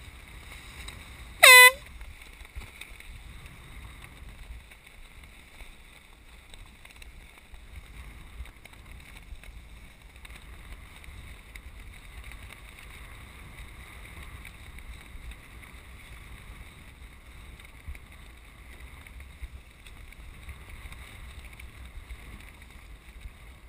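One short blast of a handheld canned air horn about a second and a half in, the finish signal for a sailboat crossing the line. Wind buffets the microphone and choppy water washes against the boat through the rest.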